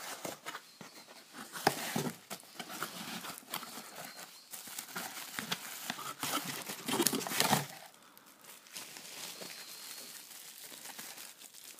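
Bubble wrap crinkling and rustling against cardboard as a wrapped part is gripped and pulled out of a cardboard box. It comes in irregular bursts, loudest about two seconds in and again around seven seconds in, then fainter.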